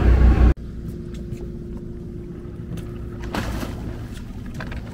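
A fishing boat's engine running with a steady low hum, which drops abruptly to a quieter hum about half a second in. There is a brief rush of noise a little past the middle and a few light clicks near the end.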